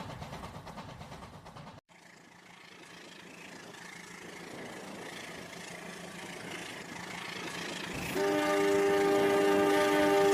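Train sounds: a fast rhythmic rumble that cuts off abruptly about two seconds in, then a train approaching, growing steadily louder, and a train horn blowing a held chord of several notes from about eight seconds in.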